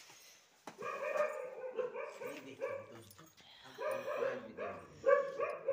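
A dog barking in quick runs of short barks, starting about a second in, with a brief lull midway before more barks.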